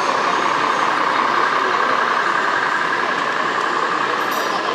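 Radio-controlled scale model Peterbilt truck driving, with a steady simulated truck engine sound.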